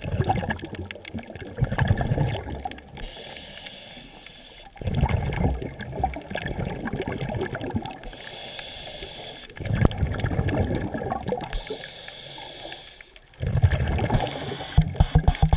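Scuba regulator breathing heard underwater: a hiss on each inhalation, then a long burst of bubbling from the exhaust on each exhalation, repeating about every four to five seconds, four exhalations in all.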